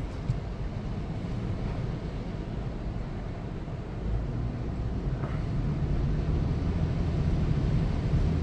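Vehicle engine and road noise, a steady low rumble that grows a little louder about halfway through.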